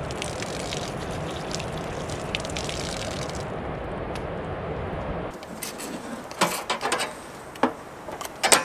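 Water running steadily from a brass spigot on a camp-kitchen water tank as hands are rinsed under it, cutting off about five seconds in. Then a series of sharp knocks and clatters.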